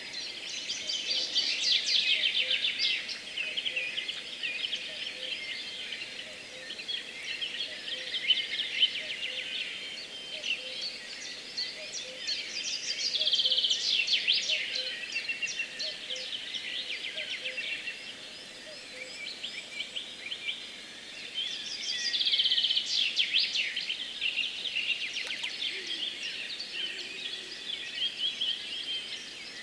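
Dawn chorus: many songbirds singing at once in a dense, overlapping mix of high trills and chirps, swelling louder three times. Underneath, a faint low note repeats about once a second for the first two-thirds.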